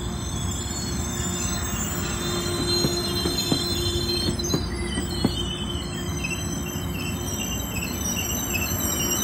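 Metrolink bilevel passenger coaches rolling past at close range. The steel wheels rumble steadily on the rail with a high, thin wheel squeal over it and a few sharp clicks in the middle.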